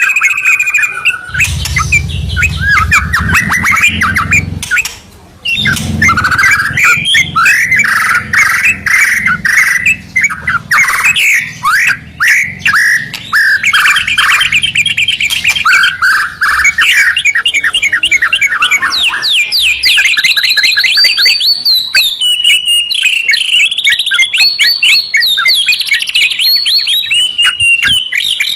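White-rumped shama and yellow-vented bulbul singing loudly in duet, a continuous run of fast trills and sweeping whistled notes. A low rumble sits under the song for the first twelve seconds or so, and everything drops out briefly about five seconds in.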